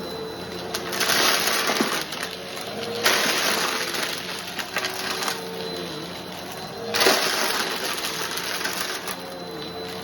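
Bissell PowerForce Helix Turbo Rewind Pet upright vacuum cleaner running with a steady motor whine while sucking up crunchy debris, which crackles and rattles through it in three loud bursts.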